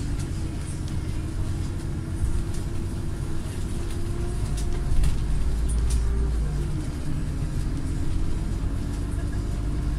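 Scania city bus's engine and drivetrain running while the bus drives, heard from inside the cabin: a steady low rumble with a whine whose pitch drops about seven seconds in, and a few light rattles around the middle.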